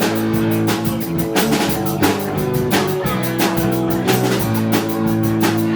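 Live rock band playing an instrumental stretch of a punk-rock song: electric guitar chords over a steady drum-kit beat.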